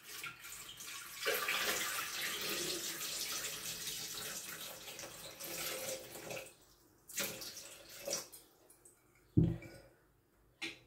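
Cold water pouring steadily into a Thermomix bowl for about six seconds, then stopping; a few short knocks follow, one a low thud near the end.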